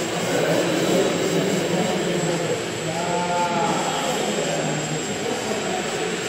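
Indoor RC model planes' electric motors and propellers buzzing, the buzz swelling and dropping as the throttle changes, with echo from the gym. A brief higher whine comes about three seconds in.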